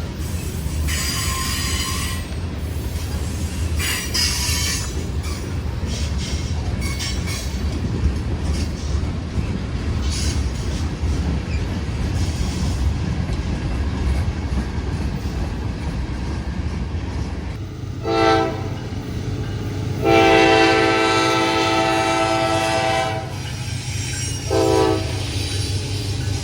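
Train rumbling past with brief high wheel squeals about a second and four seconds in. Then a locomotive horn sounds a short blast, a long blast of about three seconds, and another short blast near the end.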